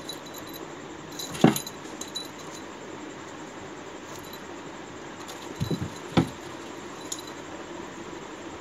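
Small bell on a cat's collar jingling on and off as the cat swats and grabs at a dangled toy, with a few thuds of its paws and body against the shelf, the loudest about one and a half seconds in and another pair about six seconds in, over a steady hiss.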